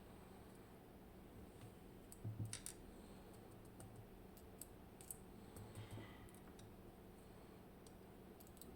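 Sparse, faint clicks and taps of small parts and tools being handled while a Medeco M4 lock cylinder is disassembled. There is a short cluster of clicks about two and a half seconds in and a few more around five to six seconds in.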